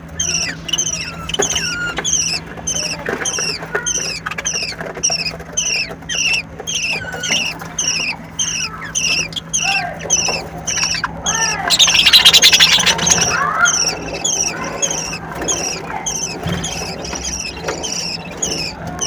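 Budgerigars chirping: short, high, falling chirps repeated about two or three times a second, with a louder harsh screech about twelve seconds in.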